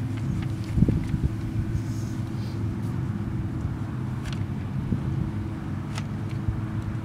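An engine idling steadily with a low hum, with one low thump about a second in.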